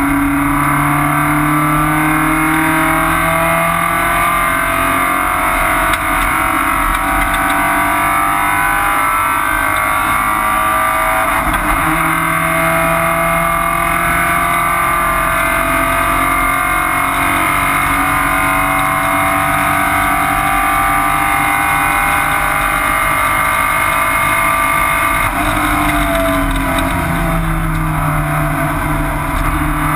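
Porsche 944 race car's four-cylinder engine running hard at speed, heard from inside the stripped cockpit. Its pitch rises and falls with the throttle, with a break about twelve seconds in and a dip and climb again a few seconds before the end.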